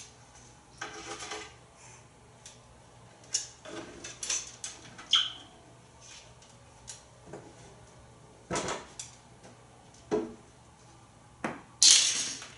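African grey parrot rummaging among his toys in a wooden kitchen drawer: scattered knocks, rattles and scrapes of plastic and wicker toys against the drawer's wood, with a louder clatter near the end.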